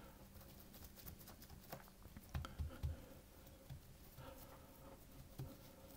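Faint soft thuds and patting of a log of biscuit dough being pressed against the worktop to square off its sides, with a few thuds close together just after two seconds in.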